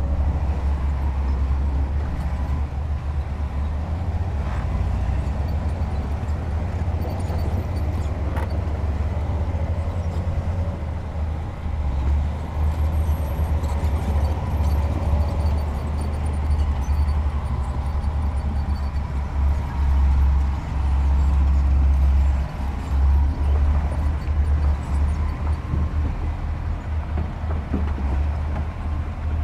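Diesel engine of heavy earthmoving machinery running with a steady low rumble.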